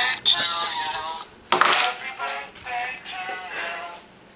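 A song with a sung vocal line playing, and a short rush of noise about one and a half seconds in.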